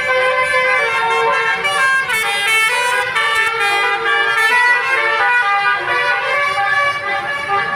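Bus's basuri telolet musical air horn, its several trumpets playing a tune of shifting tones without a break.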